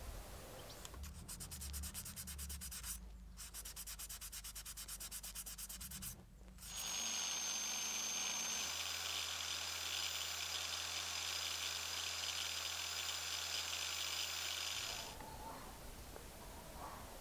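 A brass spoon lure rubbed against the sanding disc of an angle grinder: rapid rhythmic rubbing, broken twice by short gaps. Then the grinder runs steadily for about eight seconds with a high whine and a low hum while polishing compound is pressed onto its spinning pad, and it stops suddenly.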